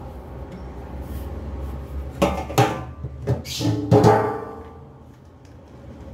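Plastic drain parts and a corrugated drain hose knocking against a stainless steel sink basin: a handful of clattering knocks in the middle, the steel ringing briefly after each.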